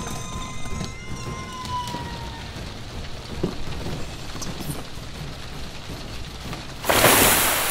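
A loud, steady spray hiss starts suddenly about seven seconds in, like water jetting from a fire extinguisher. Before it there is a held tone that bends down and ends about two seconds in, over a low rumbling background with a few faint knocks.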